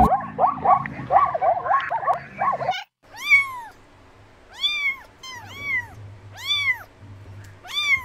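A run of short, rapid chirping calls for the first three seconds or so, then a cat meowing about six times, each meow a short call that rises and falls in pitch.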